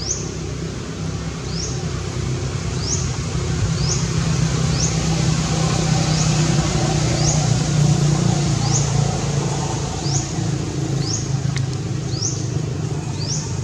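A motor vehicle's engine running with a steady low hum that grows louder through the middle and then eases off. A short, high, rising chirp repeats about once a second over it.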